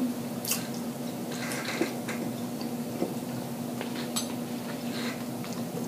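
Eating crab legs by hand: light clicks and crackles of crab shell being picked apart, with chewing, over a faint steady hum.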